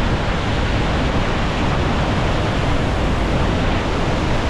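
Steady roar of the Ban Gioc waterfall in rainy-season flood, with wind rushing over the microphone.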